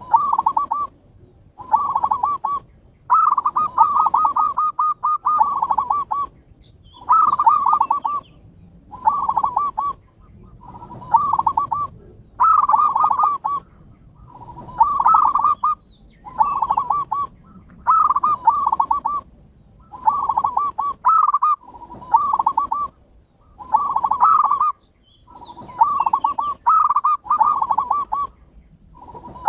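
Zebra dove (perkutut) song: short phrases of rapid, trilled cooing notes, repeated about every two seconds, played as a lure to set other perkutut singing.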